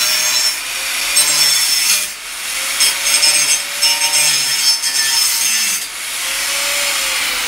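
Electric angle grinder cutting through a piece of metal: a loud, harsh screech that dips briefly two or three times as the disc bites into the metal.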